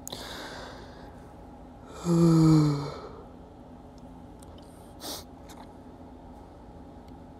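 A person's voiced exhale, a short sigh-like sound gliding slightly down in pitch, about two seconds in. Fainter breath sounds come at the start and about five seconds in, over a low steady hum.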